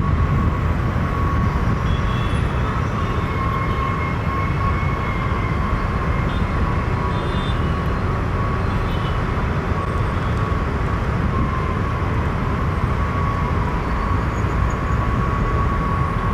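Jet aircraft engines running steadily: a low rumble with a steady high whine over it.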